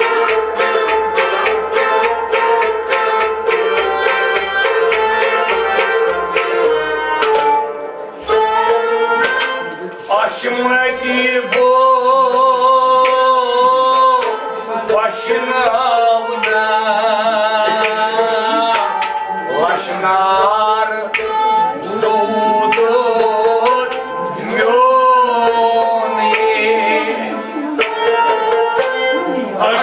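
Kashmiri Sufiana music: a bowed saz-e-Kashmir, a harmonium and a long-necked lute playing together with quick, regular drum strokes. About ten seconds in, a melody with heavy, wavering vibrato enters over the steady held tones.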